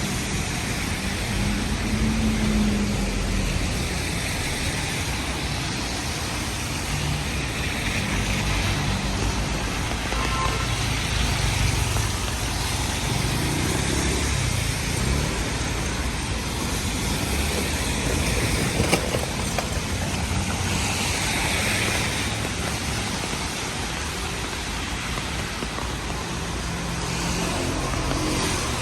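City street noise in the rain: road traffic passing, over a continuous hiss of rain and wet tyres.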